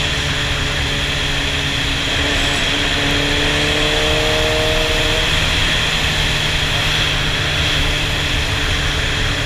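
Sportbike engine running steadily at low revs under heavy wind and road rush on the bike-mounted camera's microphone, with a faint tone rising gently from about three to five seconds in.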